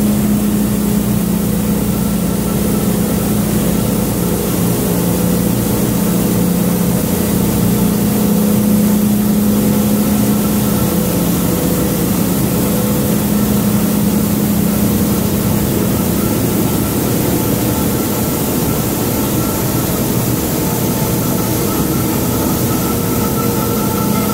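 Kidder 886 Centraflex flexographic printing press running: a loud, steady mechanical hum with a constant low drone and fainter steady whines above it.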